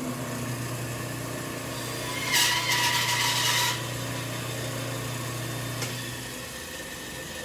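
Band saw running with a steady motor hum; about two seconds in, the blade cuts into a wooden board for just over a second, a louder, higher hissing cutting noise, as a relief cut is made. The motor hum ends about six seconds in.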